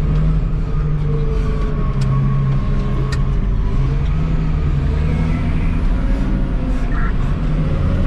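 Caterpillar 777E haul truck's diesel engine running steadily as the truck is driven, heard inside the cab: a loud, steady low drone with a fainter whine above it that drifts slightly in pitch.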